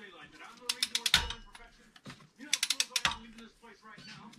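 Ratchet wrench clicking as it runs down the rocker arm bolts on a GM L76 V8's cylinder head, in two bursts of rapid clicks, about a second in and again about three seconds in.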